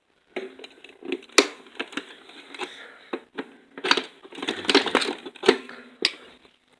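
Plastic case of a Memorex portable stereo being pried apart: a run of sharp cracks and creaks as the plastic strains and snaps, irregular and repeated through the few seconds.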